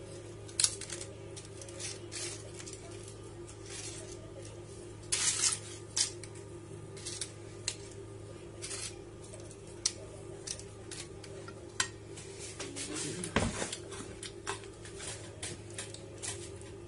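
Crisp fried pita pieces being handled and laid on a plate of rice: scattered light clicks and crackles, with a steady low hum underneath. About three-quarters of the way through comes one louder knock.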